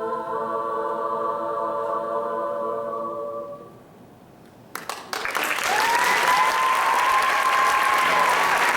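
Show choir holding a final sung chord that fades out about three and a half seconds in. After a short quiet gap, the audience breaks into loud applause and cheering.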